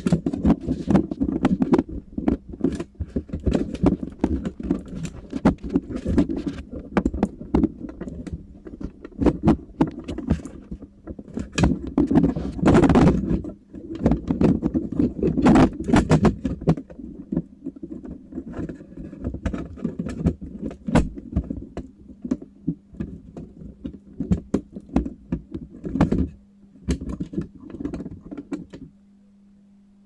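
Irregular clicks, knocks and rattles of hard objects being handled close to the microphone, thinning out near the end, where a low steady hum remains.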